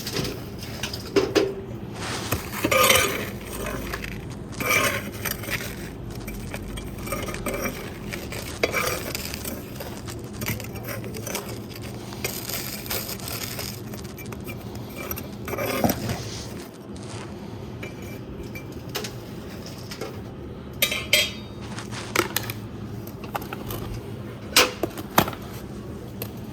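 Irregular clanking and scraping of a metal tool against the metal firebox of a homemade fireplace as the wood ash is cleaned out, with a few louder knocks scattered through.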